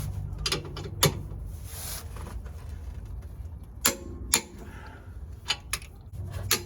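Irregular sharp metallic clicks and knocks from hand tools being worked on the skid-plate bolts, over a low steady hum.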